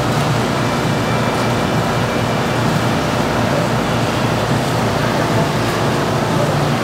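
Steady background noise of a covered market street: a constant rumble and hiss with no distinct events.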